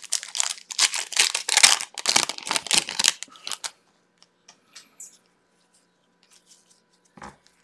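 Foil wrapper of a 2020 Topps Chrome Formula 1 trading-card pack crinkling and tearing open in a quick run of crackles for about three and a half seconds, then only a few faint clicks as the cards are handled.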